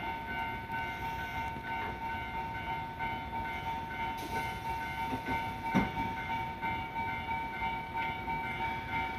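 A JR 383-series electric train standing at the platform, its onboard equipment giving a steady whine of several pitches over a low rumble. A single sharp knock comes a little over halfway through.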